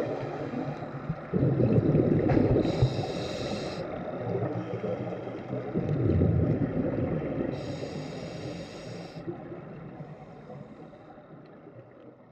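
Scuba diver breathing through a regulator underwater: rumbling exhaled bubbles alternate with a high hiss twice, then the sound fades out.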